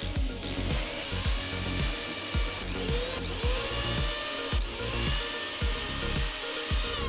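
Cordless drill driving a threaded rod into a softwood block through a hex socket in its chuck, the rod grinding its way into the wood; the motor's whine rises and levels off each time the trigger is pulled, several times over.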